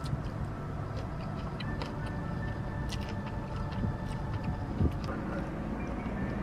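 Chewing and small lip-smacking clicks from someone eating chicken wings, over a steady low rumble, with a single thump near the end.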